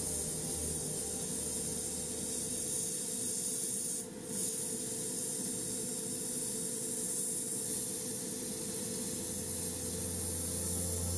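Gravity-feed airbrush spraying paint with a steady hiss, breaking off briefly about four seconds in.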